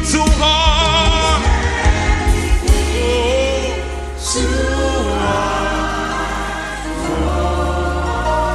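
Live gospel music: a singer's wavering vocal run over bass and drum beats for the first second or two, then choir and band holding sustained chords.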